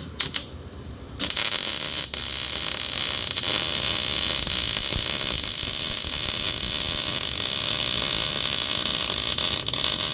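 MIG welder arc crackling and sizzling as it lays a bead on a steel tube nerf bar. The bead is being run over steel with stop-leak cutting oil on it, which the welder says is not good for welding. A couple of short arc blips come first, then a steady crackle from about a second in, with one brief break soon after.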